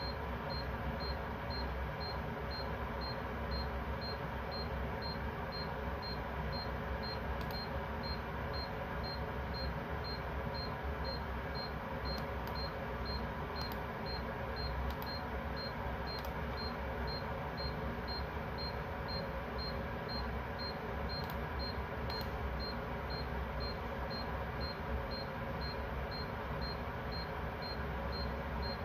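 A faint, high-pitched electronic alarm beeping in short, evenly spaced pips, about two a second, over a steady low background rumble and hiss. A few faint ticks come through in the middle.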